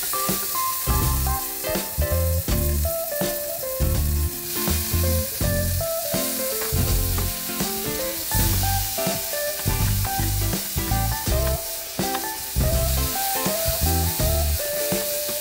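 Minced garlic sizzling as it fries in oil in a frying pan, with background music carrying a melody and a steady bass beat over it.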